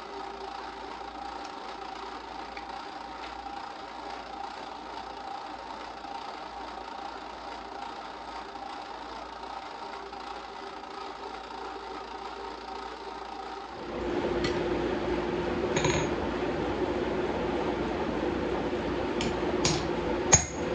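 Drill press motor running steadily while drilling holes through the tang of a steel knife blade. After a cut, a steady noise comes in, with a handful of sharp hammer strikes on a hot blade at an anvil; the last strike, near the end, is the loudest.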